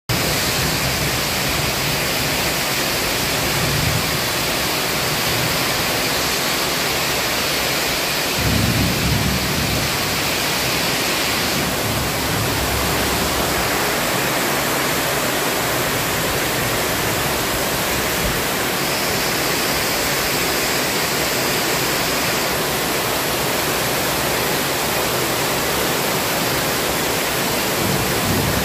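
Heavy tropical downpour: a steady, even hiss of rain pouring on foliage and a sheet-metal roof. Low rumbles of thunder come and go underneath, the loudest about eight and a half seconds in.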